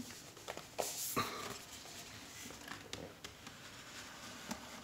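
Intermittent scuffs, scrapes and light knocks of a wooden watch box being shimmied by hand out of a tight-fitting outer sleeve box, the loudest about a second in.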